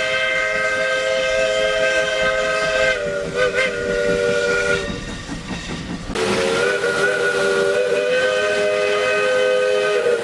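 Chime steam whistle sounding two long blasts, each a chord of three notes. The first wavers briefly about three seconds in and stops just before five seconds, and after a short gap filled with hiss the second blast sounds from about six seconds in, slightly lower in pitch.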